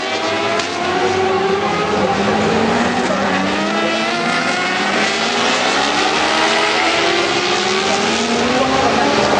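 Several World Superbike racing motorcycles passing in a pack, their engine notes overlapping and repeatedly rising in pitch as they accelerate through the gears.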